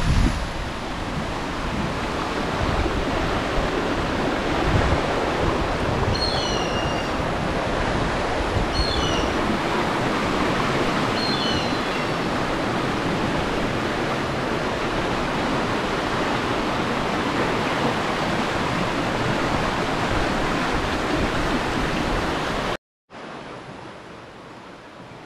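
Steady rushing outdoor noise with a few short bird chirps about six, nine and eleven seconds in; near the end it drops abruptly to a much quieter background.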